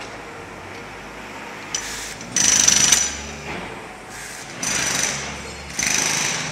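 A power tool on a tram-track construction site running in three short bursts of under a second each, with a high whine, the first burst the loudest. A sharp click comes just before the first burst.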